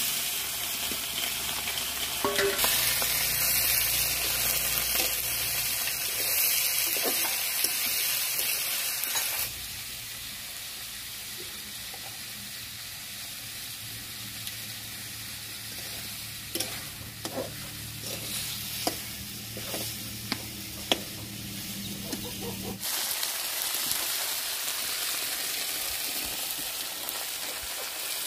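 Chopped taro and chicken giblets frying in hot oil in a metal kadai. The sizzle starts suddenly and loud as the food is tipped in, then settles to a quieter sizzle, with the metal spatula clicking and scraping against the pan as it is stirred.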